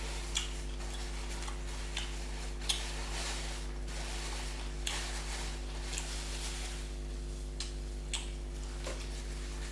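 Scattered soft clicks and taps from eating and handling food and dishes, about eight at irregular intervals, the sharpest nearly three seconds in, over a steady electrical hum.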